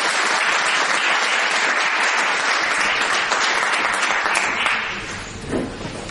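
Audience applauding, a dense clapping of many hands that dies down about five seconds in.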